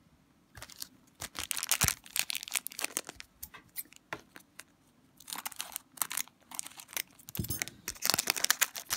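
Upper Deck Portfolio hockey card pack being torn open, its wrapper crinkling and tearing in three spells of crackling.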